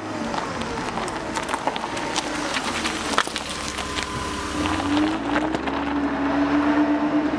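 A vehicle engine running, with many scattered sharp clicks and a pitch that rises about halfway through, then holds.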